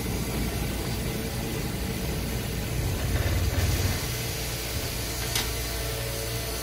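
Electric streetcar rolling along its street track, heard from inside its wooden cab: a steady low rumble of running noise, with one light click about five seconds in.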